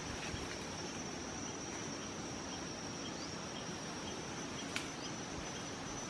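Insects chirring steadily on one high pitch over a soft outdoor hiss, with a single sharp click about three-quarters of the way through.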